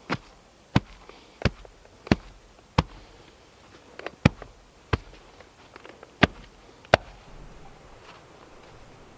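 Wooden hand tamper pounding loose dirt in a concrete footing trench to compact it: about nine sharp blows, roughly one every two-thirds of a second, with a short pause midway, stopping a little after halfway through.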